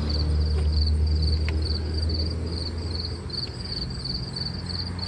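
Can-Am Spyder F3's three-cylinder engine running, its hum easing down a little about two seconds in. The throttle hangs rather than returning fully, which the owner blames on the throttle lock crushing the throttle tube. Crickets chirp steadily and rhythmically over it.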